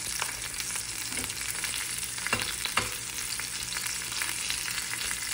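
Red bell pepper pieces sizzling in hot oil in a nonstick frying pan, softening as they roast. Metal tongs turn them, with two sharp clicks against the pan a little past two seconds in.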